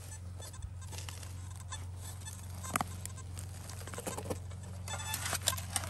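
Steel spade digging into soil: scraping and crunching of earth with scattered short knocks, the sharpest about halfway through, over a steady low hum.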